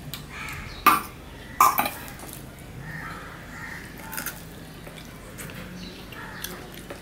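Close-up eating sounds of rice and mutton curry eaten by hand from a steel plate and bowl. There are two short, loud sounds about a second in and just under two seconds in, then quieter chewing and handling of the food.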